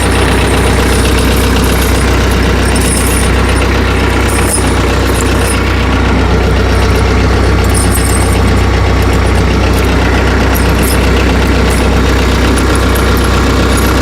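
A compact tractor's engine idling steadily, with a few faint high clicks over it now and then.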